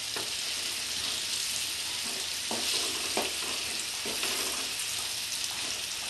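Potato chunks sizzling steadily in hot oil in a frying pan, with a wooden spatula scraping against the pan a few times as the pieces are turned over.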